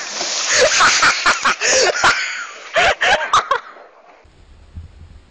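A person plunging into a weir pool with a big splash and churning water, while people laugh loudly and cry out. The noise dies away about four seconds in.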